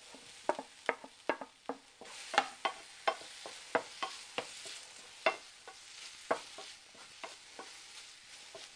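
Wooden spatula knocking and scraping in a small nonstick frying pan, irregular taps about twice a second, as mashed boiled Nendran banana is stirred and sautéed over a soft sizzle of hot oil.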